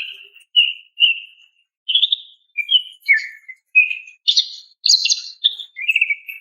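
Female green leafbird (cucak ijo) giving a string of short chirping call notes, about two a second, with a brief pause about one and a half seconds in. It is a female's call to males.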